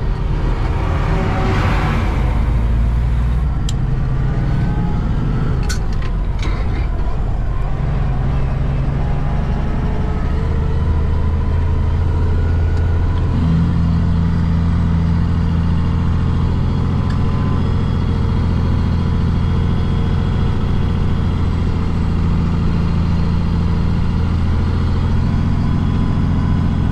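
Diesel engine of an International ProStar semi-truck running steadily on the highway, with a short rush of noise about two seconds in. The engine note steps up about thirteen seconds in and then holds.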